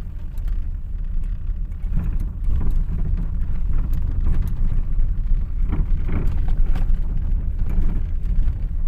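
A moving vehicle's steady low rumble of engine and road noise.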